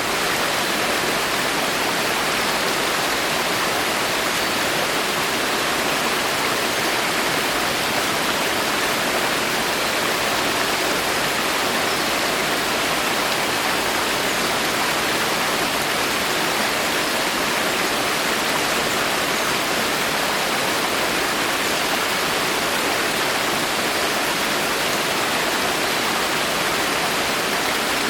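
Rain falling steadily in a forest: a dense, even hiss of countless drops with no single drop standing out.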